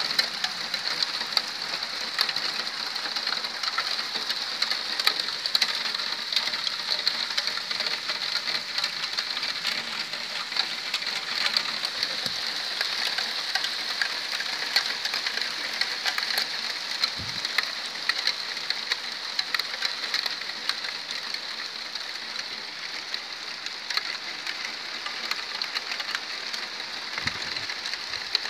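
Graupel, small ice pellets, falling steadily in a dense, even patter of fine ticks on the ground and surrounding surfaces.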